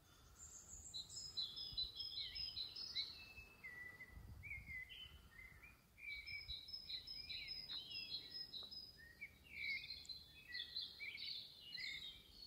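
Small songbirds singing: quick runs of high chirps and short falling notes, with a brief pause about halfway through.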